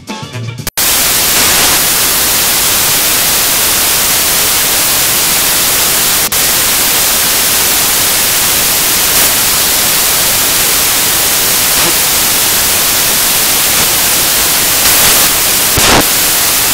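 Swing-style intro music cuts off abruptly less than a second in and gives way to loud, steady static hiss, like white noise, with a single click about six seconds in.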